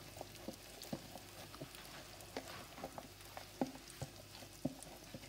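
Wooden spatula knocking and scraping in a kadhai as mashed boiled potatoes are stirred into hot spiced oil, with a faint frying sizzle underneath. The knocks come at irregular intervals, about two a second.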